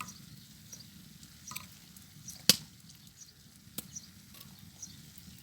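Wood fire burning under a stone grilling slab, with scattered crackles and a loud sharp pop about two and a half seconds in and a smaller one a little later.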